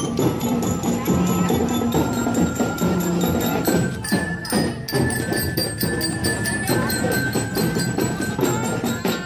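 School drum and lyre corps playing a march: bell lyres carry a bright tune over steady drumming.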